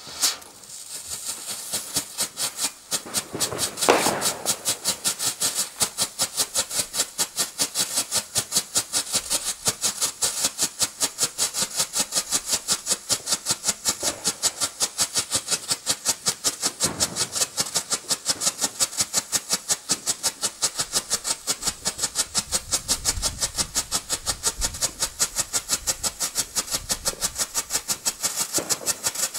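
Zena Disco Flash White, a category 2 strobe firework, burning: a rapid, even train of sharp flash pops, about four a second, over a hiss of burning composition. It builds up over the first few seconds, with one louder pop about four seconds in.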